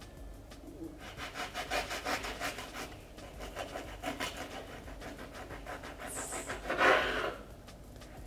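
A knife saws back and forth through a loaf of soft homemade white sandwich bread and its crust on a wooden cutting board, making a quick, rhythmic rasping. Near the end there is a single louder brushing sound as the cut slice comes away.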